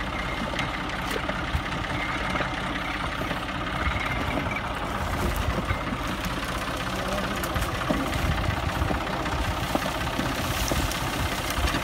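Tractor's diesel engine running steadily, a continuous low chugging without change in speed.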